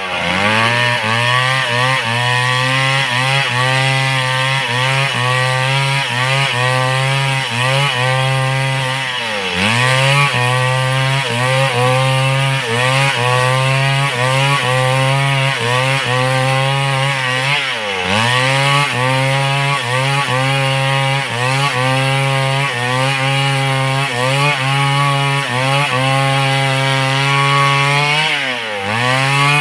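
Large two-stroke chainsaw running at full throttle while cutting through wood, its pitch wavering as the chain bites. About a third of the way in, two-thirds of the way in and near the end, the engine speed sags sharply under load and then climbs back.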